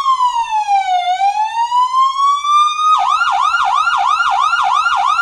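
Electronic siren in a slow wail, falling and then rising again, that switches about three seconds in to a fast yelp warbling about four times a second.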